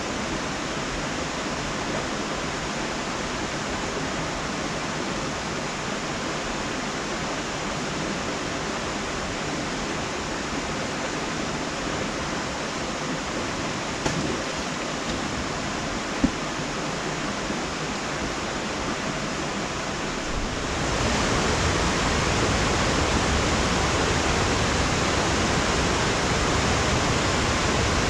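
Steady rushing hiss with no speech, getting louder about twenty seconds in; two faint clicks come near the middle.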